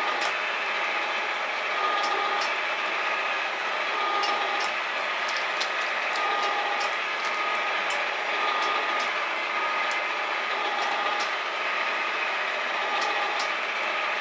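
Metal shaper cutting metal: steady mechanical running with a cycle that repeats about every two seconds as the ram strokes back and forth, and scattered sharp ticks.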